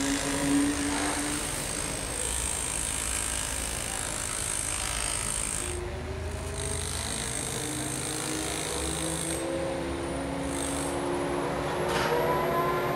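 Crane engine running under load as it hoists a concrete track slab on chains, its pitch rising from about halfway through and climbing again near the end, with a metallic clank near the end.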